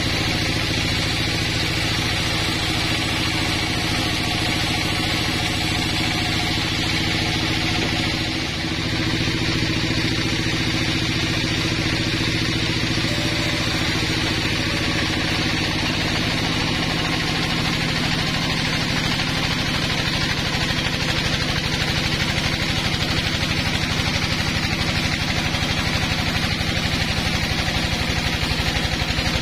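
Vertical band sawmill running steadily, its blade ripping lengthwise through a squared pine log.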